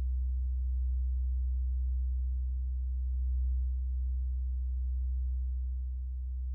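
95 cm Sun gong sounding a deep, sustained low hum with fainter higher overtones, swelling and easing gently in loudness, with no new strike.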